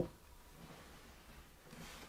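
A single sharp knock right at the start, then faint room noise.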